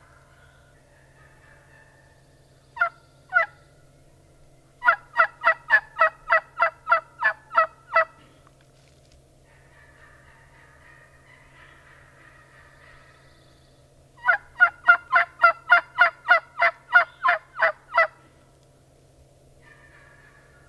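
Turkey yelping. Two short yelps come first, then a run of about a dozen at roughly four a second, and after a pause of several seconds another run of about a dozen.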